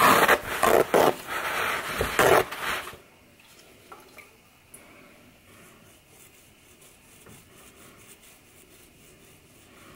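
Loud rustling and scraping of handling for about three seconds, then faint soft rubbing as a damp paper towel wipes scale insects off a prickly pear cactus pad, with a few small ticks.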